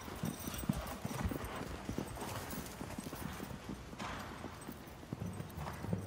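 Hoofbeats of Lipizzaner stallions stepping on the sand footing of a riding arena: irregular low thuds.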